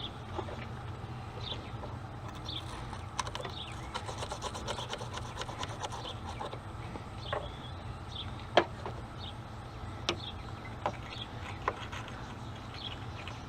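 Scrubbing and scraping at a corroded car battery terminal: a run of quick rubbing strokes, then a few sharp clicks and taps. A steady low hum sits underneath.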